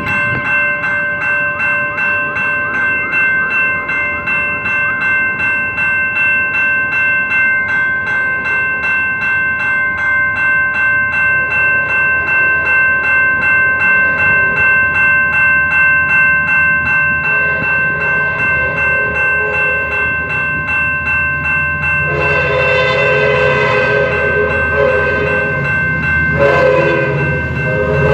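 Grade-crossing warning bell ringing steadily, about one and a half strikes a second. In the last six seconds an approaching Amtrak F59PHI diesel locomotive blows its horn loudly in two long blasts over the bell, with a rising low rumble of the train.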